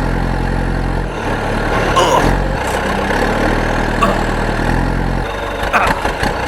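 A motor running with a steady low hum, which cuts out briefly about a second in and again near the end, with a few short knocks.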